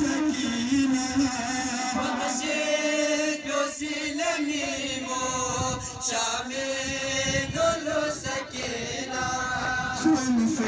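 Religious chant sung by men's voices together, with long held notes.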